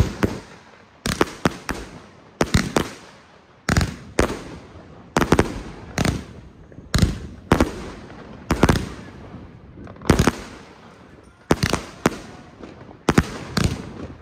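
Firework cake firing in repeated volleys: sharp bangs in clusters of two to four, a new cluster about every one and a half seconds, with a crackling hiss fading between them.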